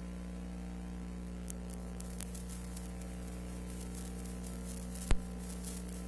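Steady electrical hum with hiss, broken by scattered crackles that come thicker in the second half and one sharp, loud click about five seconds in. This is the noise floor of a silent film transfer, with no live sound.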